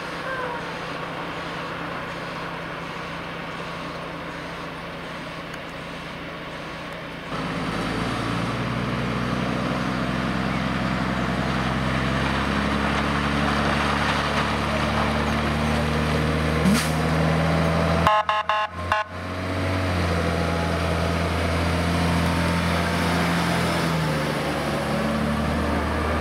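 Heavy fire-service water tanker's diesel engine idling, then about seven seconds in it gets much louder as the truck pulls away, its engine note stepping up and down through the gear changes. The sound briefly cuts out near the end.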